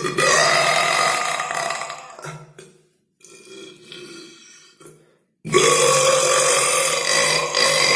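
A person burping: a long loud belch over the first two seconds or so, a quieter one in the middle, then another long loud belch starting about five and a half seconds in.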